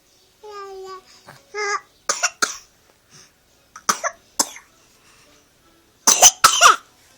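A baby coughing in three pairs of short coughs, the last pair the loudest, after a couple of brief baby vocal sounds.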